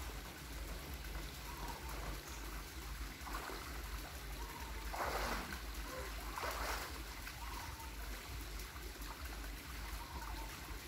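Swimming-pool water trickling and lapping steadily, with two brief splashes a little past halfway through.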